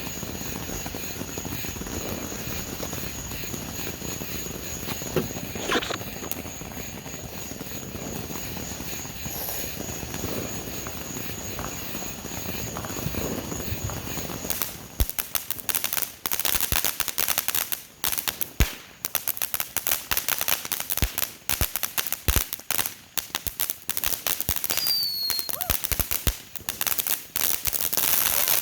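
Fireworks popping and crackling in a rapid, irregular string of sharp reports. The string starts about halfway through after a steady hiss.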